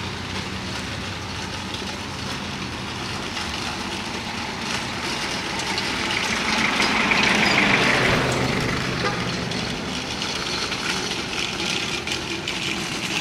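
A motor vehicle engine running nearby with a steady low hum, growing louder for a couple of seconds about six seconds in before easing off.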